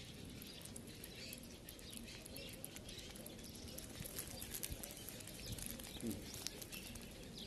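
A kitten lapping milk from a plate: soft, rapid wet clicks of the tongue, thickest in the second half.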